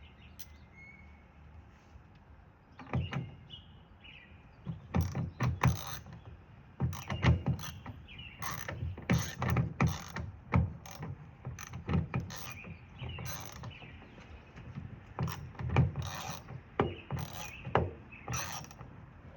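Irregular metallic clicks and knocks, coming in quick runs from about three seconds in: a sliding-door lock and its parts being handled and pushed, trying to get the lock into its hole in the door.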